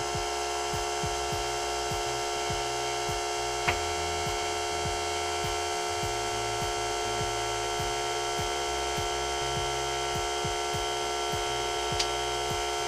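Air compressor running with a steady hum and low pulsing while a tubeless mountain-bike tire is inflated. Two sharp snaps, one about four seconds in and one near the end, are the tire bead popping onto the rim.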